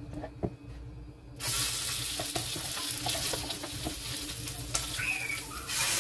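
Raw chicken pieces sizzling as they are laid into a hot non-stick frying pan. A few light knocks come first, then the sizzle starts about a second and a half in and gets louder near the end as a second piece goes in.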